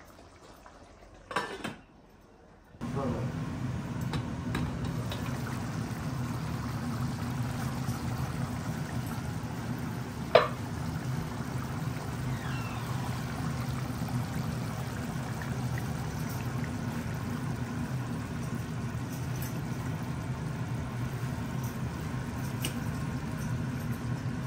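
A pot of chicken curry simmering on a gas hob. About three seconds in, a steady low bubbling and burner noise sets in, with one sharp pop near the middle.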